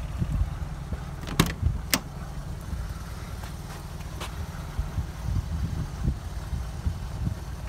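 A 1992 Mk1 Golf's door is opened: two sharp clicks about half a second apart as the handle is pulled and the latch lets go, then a fainter click a couple of seconds later. A steady low rumble runs underneath.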